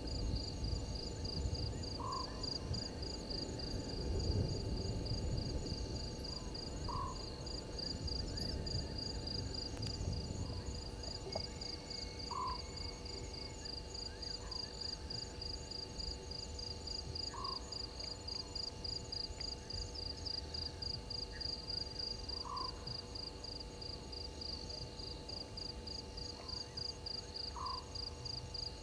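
Night bush ambience: insects trilling in a steady, fast-pulsing high chorus, with a short call repeating about every five seconds. Low rumbling noise runs through roughly the first third.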